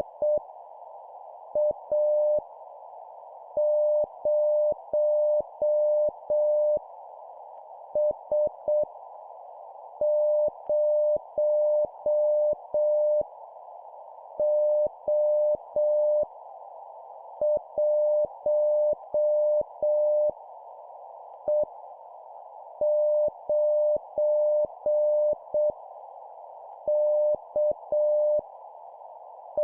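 Morse code (CW) practice: a single steady mid-pitched tone keyed on and off in dots and dashes at 7 words per minute, sending random letters and numbers one character at a time with long gaps between them. It plays over a continuous soft hiss.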